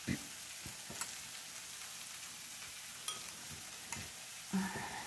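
Ginger and other aromatics frying in oil in a pan, giving a steady sizzle, with a few faint light clicks.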